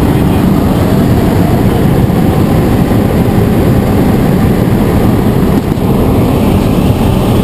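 Jump plane's engine and propeller, heard from inside the cabin as a loud, steady drone during the climb.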